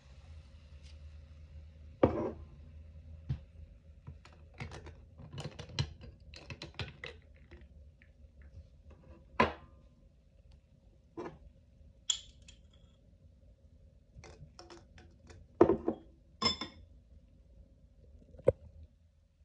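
Scattered clicks, taps and knocks of a stemmed glass, ice cubes and a drinks can being handled on a table, the loudest about two seconds in and about two thirds of the way through.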